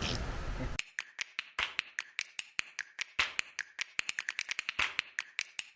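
A rapid, irregular run of sharp clicks or taps, several a second, over an otherwise silent background; it begins abruptly about a second in, after a hard cut from outdoor noise.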